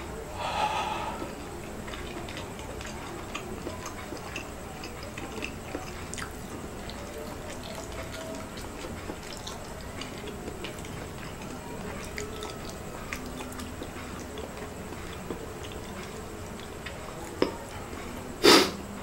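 A man blowing out a breathy exhale about half a second in, then a quiet room with faint small mouth clicks, and a short, sharp, loud noise near the end.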